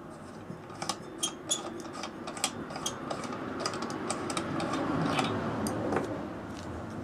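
Clicks and small metallic scrapes of hands working a Coleman 288A700 gasoline pressure lantern's metal fuel tank and its fittings, over a rushing noise that builds and stops about six seconds in.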